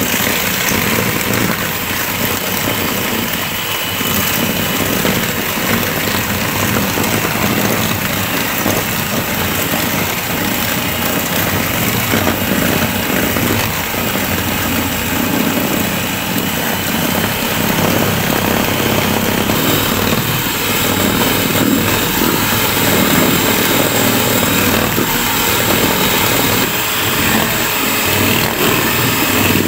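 Electric hand mixer running steadily at speed, its beaters whipping eggs, sugar and ovalet in a stainless steel bowl. This is the long beating that turns the batter pale and thick for a sponge cake.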